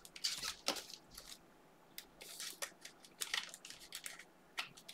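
Panini Mosaic football cards being flipped and slid through the hands one after another: a run of short, crisp card-stock swishes and clicks, with a brief lull about a second and a half in.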